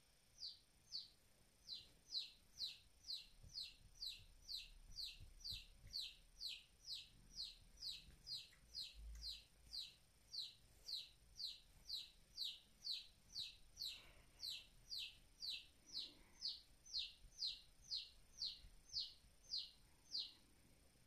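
A chick peeping over and over, about two peeps a second, each one short and falling in pitch.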